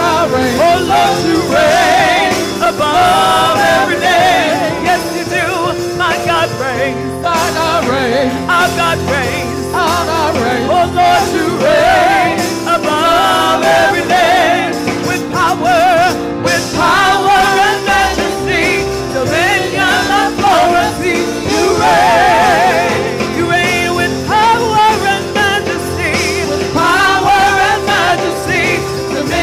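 A woman singing a gospel worship song with wavering vibrato and quick melodic runs, over sustained chords on a Roland Juno-DS keyboard.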